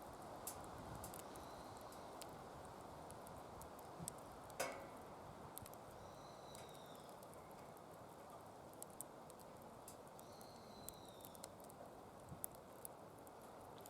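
Wood fire in a DOD Mecha Moe Fire secondary-combustion fire pit, burning with a faint steady rush and scattered small crackles and pops. There is one louder pop about four and a half seconds in.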